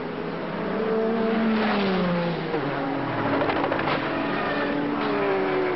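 Sports-prototype race-car engines at high revs going past, their pitch falling as each car passes. About three seconds in comes a short run of sharp clattering and scraping as a car flips and strikes the track.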